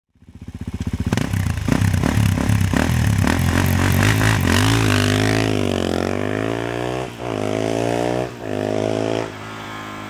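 Suzuki DR-Z400SM single-cylinder four-stroke engine running through a Yoshimura RS2 exhaust with carbon fiber muffler, revving hard and accelerating away. The pitch climbs with two brief dips about seven and eight seconds in as it shifts up, and the sound drops off near the end.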